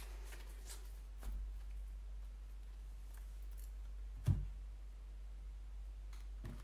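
Oracle cards being handled and shuffled: a few light snaps and clicks, then one solid knock about four seconds in as the deck or a card meets the table.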